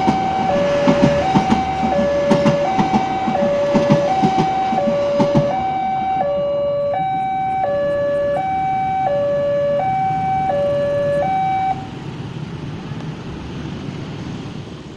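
Electronic two-tone warning sounder of a railway level crossing, alternating between a higher and a lower tone, each held about two-thirds of a second. For the first few seconds the wheels of a passing train clatter over the rail joints. The sounder cuts off abruptly about three seconds before the end, once the train has cleared and the barriers are lifting.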